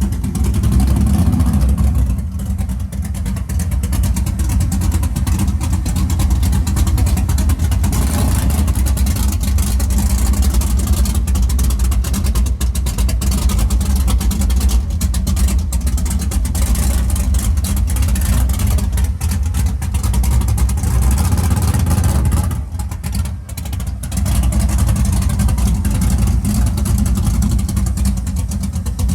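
Car engine running loud and steady, with a heavy low rumble; it drops off briefly about three-quarters of the way through, then picks back up.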